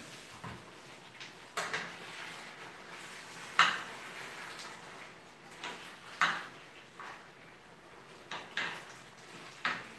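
Cooking utensil knocking and scraping against a frying pan on the stove, in scattered clinks every second or so, the loudest about three and a half seconds in.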